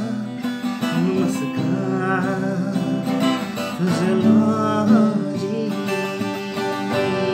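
Music led by strummed acoustic guitar, with a wavering melody line above it.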